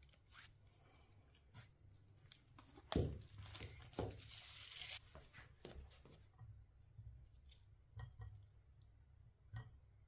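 Plastic wrapping being torn and crinkled off a pillar candle in a burst of about two seconds, after a sharp knock about three seconds in. Light clicks and knocks of wax candles being set down on a slate tray come before and after.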